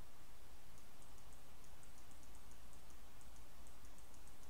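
Computer mouse scroll wheel ticking in quick irregular runs, over a steady low hum.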